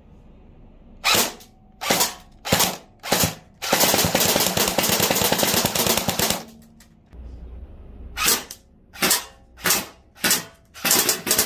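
Airsoft M16 rifle firing BBs: four short bursts, then about three seconds of continuous full-auto fire. After a pause come four more short bursts, and a rapid full-auto string starts near the end.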